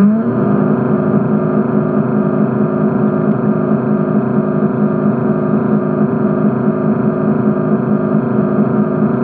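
A motor humming at one steady pitch, heard underwater.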